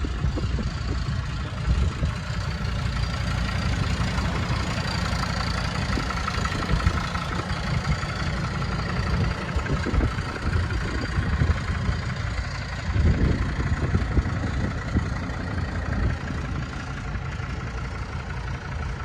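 An engine running steadily, a continuous low rumble with a faint whine above it.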